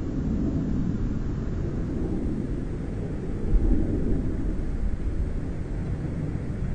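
Steady low rumble and rushing noise of aircraft in flight, swelling briefly louder about three and a half seconds in.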